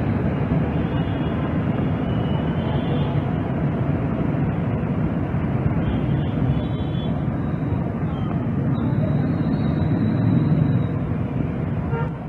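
Steady rumble of road traffic on a wet street, with motorbikes and auto-rickshaws passing.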